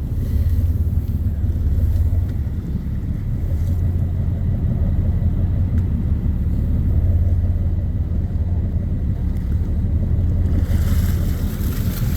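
Whale-watching boat's engine running steadily, a low drone, with wind and water noise over it; the hiss swells near the end.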